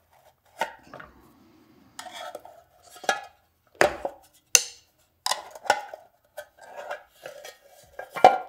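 Irregular metal clinks and knocks from a screwdriver and a sheet-metal motor capacitor cover being handled while the capacitors are worked loose: about a dozen sharp clanks, some with a short ring.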